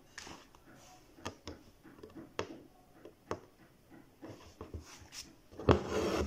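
Needle and embroidery floss being drawn through cotton fabric held taut in an embroidery hoop while stem-stitching: scattered soft ticks and taps, with a louder knock near the end.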